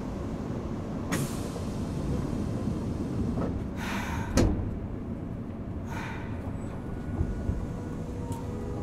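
Inside a Nagoya Municipal Subway 3000 series chopper-controlled train: a low, steady rumble broken by three short hisses of compressed air from the brakes, about one, four and six seconds in. The loudest hiss, around four seconds, ends in a sharp thump.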